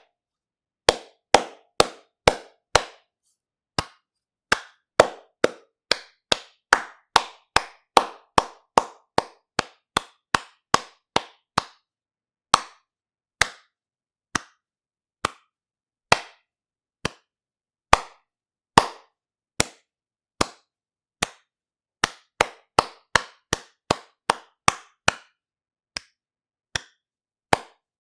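Hand clapping as separate, sharp single claps. Runs of about two claps a second alternate with slower, sparser claps spaced a second or more apart.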